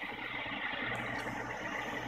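Munchkin T80 gas boiler firing: its combustion blower fan and burner running with a steady hum and a constant high tone.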